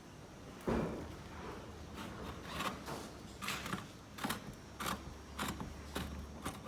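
Hand-tool work on the caravan's metal panel: a knock, then a run of short, irregular clicks and rasps about every half second.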